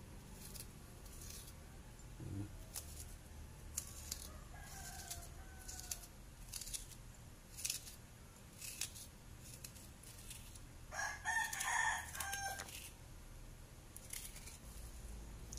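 Spoon scraping flaky fish flesh off a tamban into a ceramic bowl, short scratchy strokes about once a second. A rooster crows once about eleven seconds in, the loudest sound.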